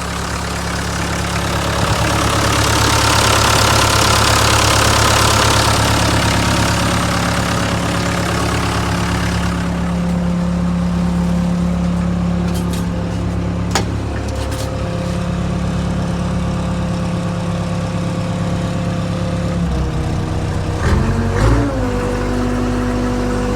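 Case 580 backhoe's diesel engine idling steadily. A broad hissing noise rides over it for the first several seconds, and the engine speed wavers briefly near the end before settling.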